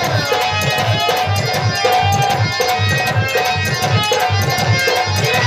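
Live folk stage music: a tabla-type hand drum plays a fast, steady rhythm under held melody notes.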